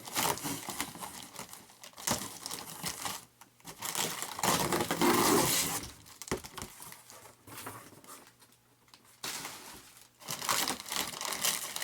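Plastic packing material crinkling and tearing in irregular bursts as a model plane part is unwrapped, loudest in the middle and quieter for a moment near the end.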